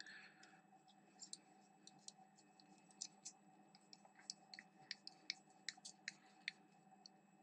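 Near silence broken by faint, irregular small clicks and ticks: a hex driver turning the tiny locking screw on an RC shock's spring perch, and the shock parts being handled. A faint steady hum sits underneath.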